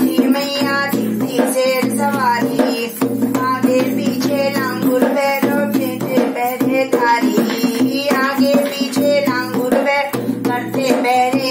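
A woman singing a Hindi devotional bhajan to the Mother Goddess, accompanying herself on a dholak barrel drum with a steady hand-played rhythm.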